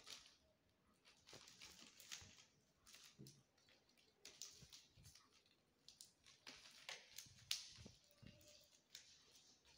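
Faint, irregular scratching and rustling: kittens' claws catching on woven plastic sacks and plastic bags as they climb, with one sharper click about seven and a half seconds in.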